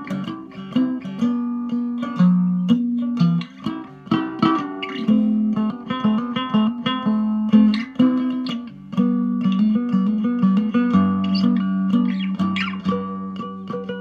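Hubcap Howler cigar box guitar with a hubcap resonator, picked: a melody of single notes over a sustained low drone, with a lower bass note joining near the end.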